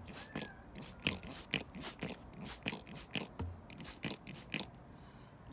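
A run of irregular crackling clicks and scrapes, several a second, close to the microphone, fading out about a second before the end.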